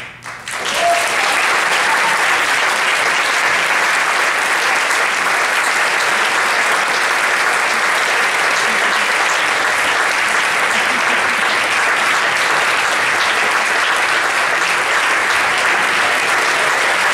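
Concert audience applauding at the end of an orchestra's piece: the clapping breaks out a moment in, swells within about a second, then holds steady.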